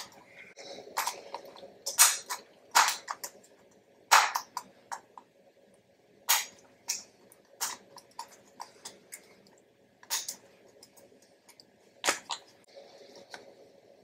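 Fingers and fingernails working at a chiclet keycap on an Apple wireless keyboard, trying to pry it off its scissor mechanism: a series of sharp, irregular plastic clicks with faint scuffing between them.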